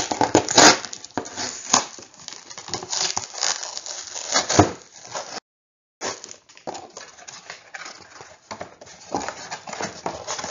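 A cardboard Priority Mail shipping box being torn open and handled: tape ripping, cardboard crackling and scraping, and flaps being pulled apart. The sound cuts out completely for about half a second midway.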